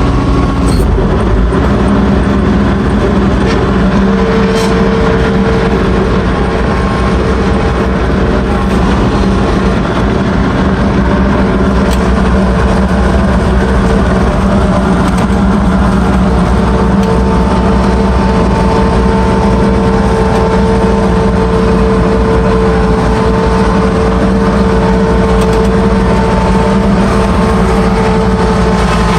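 Ransomes FrontLine 723D diesel mower running steadily as it mows grass. A steady whine joins the engine about four seconds in, and a higher whine comes in past the middle.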